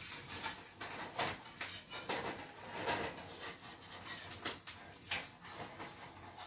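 A spatula and frying pan clinking and scraping: scattered light knocks and clicks of utensils against the pan while an omelet is being worked in it.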